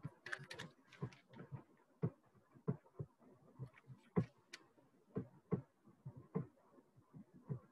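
Scattered soft clicks and knocks at an irregular pace, about one or two a second, with a quick flurry at the start and another about four seconds in, in a small room.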